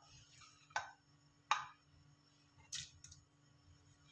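A few faint, short ticks spaced about a second apart from the pot of boiling chicken stock, over a low steady hum.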